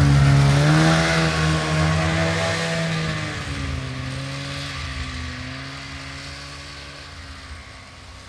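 Snowmobile engine running as it passes close and pulls away. Its pitch rises about a second in, then sinks after about three seconds, and the engine fades steadily into the distance.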